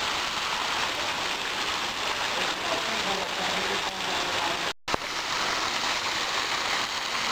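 Water jetting from a carved stone lion-head spout and splashing steadily into the pool. The sound cuts out for a moment about two-thirds of the way through.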